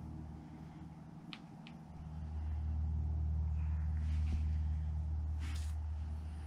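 Low, steady drone of a distant engine, most likely a motor vehicle, swelling about two seconds in and easing off near the end, with a few brief scuffs.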